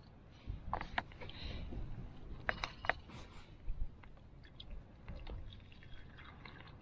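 Clicks, knocks and plastic crackles of a metal camp-stove pot and a plastic water bottle being handled, with a cluster of sharp clicks a few seconds in. A low wind rumble on the microphone runs underneath.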